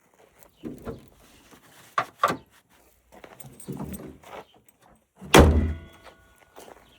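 A series of knocks and clunks from things being handled. The loudest is a heavy metallic bang about five seconds in, which rings on briefly.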